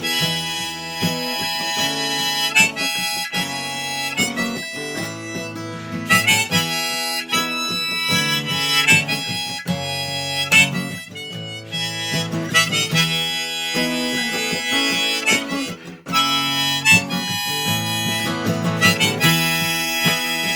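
Harmonica playing a melody over a strummed acoustic guitar, in an instrumental break of a folk song with no singing.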